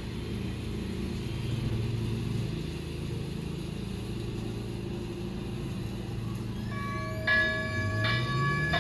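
Siemens S70 light rail train running with a low hum, then its warning bell starts ringing about seven seconds in, strokes less than a second apart.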